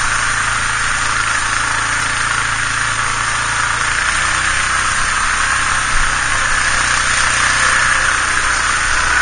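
Yamaha Grizzly 450 ATV's single-cylinder engine running steadily as the quad wades through a shallow creek, with water splashing from its wheels.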